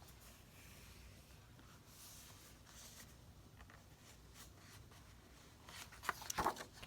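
Quiet rustling and rubbing of paper being handled and smoothed down by hand, with a few louder crinkles and taps near the end.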